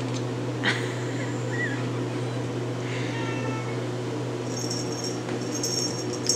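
RagaMuffin kitten giving a soft, quiet meow about three seconds in, after a brief chirp near the start. A steady low hum runs underneath, and a light high-pitched rattling comes near the end.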